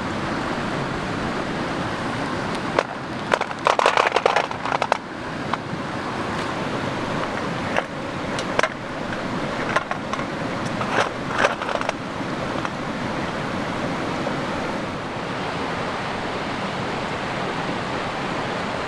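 Steady rush of a cascading mountain creek, with short clusters of sharp clicks and knocks about three to five seconds in and again around eight to twelve seconds in.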